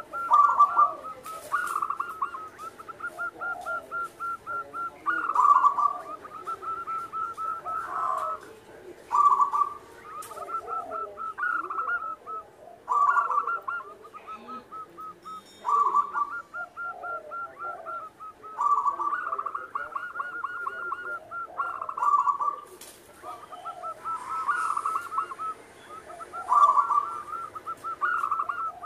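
Zebra dove (perkutut) singing its song over and over. Each phrase is a loud coo, then a long run of quick notes at about eight to ten a second, then another loud coo, with a new phrase every few seconds.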